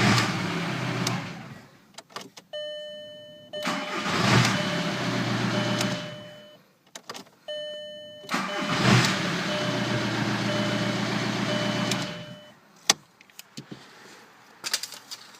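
A 2000 Volkswagen Jetta TDI's four-cylinder turbodiesel is started, run for a few seconds and shut off, three times over, to circulate fresh oil after an oil change. Before the second and third starts a dashboard chime sounds, and it keeps beeping while the engine runs. A few clicks follow near the end.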